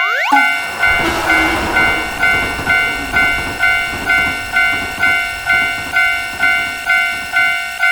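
Japanese railroad crossing warning bell ringing in a steady rhythm, a little more than two strikes a second, while a train runs past.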